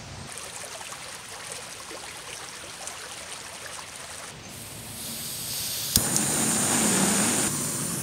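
A shallow rocky creek running, then louder splashing for a couple of seconds, with a single clink, as a pot is dipped in to fill it. Near the end this gives way to the steady hiss of a canister camp-stove burner.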